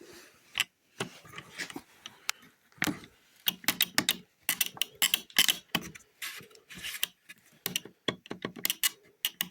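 Irregular light clicks and taps of hand work on a side-mirror housing, as a screw is driven into the plastic and the plastic parts are handled.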